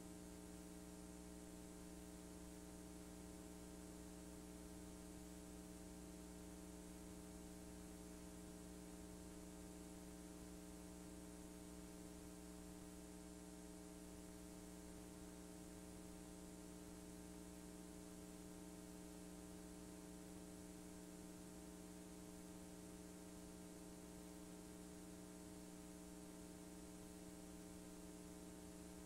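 Near silence: a faint, steady electrical hum of several fixed tones over low hiss, from a blank stretch of a VHS tape transfer.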